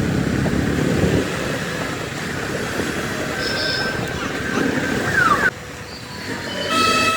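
Steady rumble of road traffic, with a vehicle horn sounding near the end. The level drops suddenly a little after halfway.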